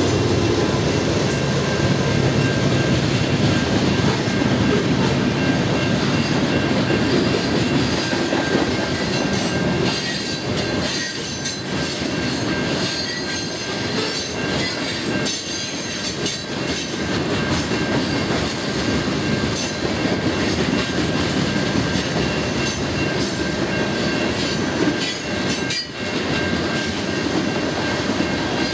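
Freight train of loaded tank cars rolling past: a steady rumble of steel wheels on rail with repeated clacks over the rail joints and a thin steady squeal. It eases slightly from about ten seconds in.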